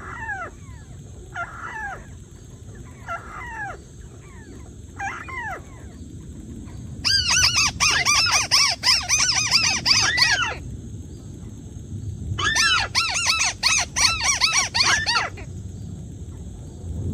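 Bird calls from a trapping lure: single falling notes every second or so, then two loud runs of rapid, repeated chattering notes, the first about seven seconds in and the second about twelve seconds in.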